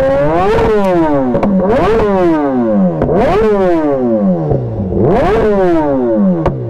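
Superbike engine revved hard about four times, each rev climbing quickly in pitch and then falling back toward idle.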